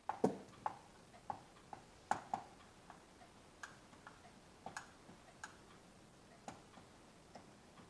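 Dry-erase marker writing on a whiteboard: a string of light, irregularly spaced taps and clicks as the letters are formed.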